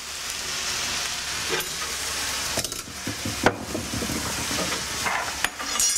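Ground lamb sizzling in a black steel wok as it is stirred together with the garlic and spices, a utensil scraping and knocking against the pan. One sharp knock about three and a half seconds in.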